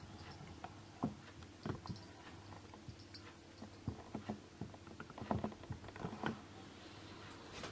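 A cat licking and grooming its fur: faint, irregular wet clicks and smacks of the tongue, coming more often in the second half.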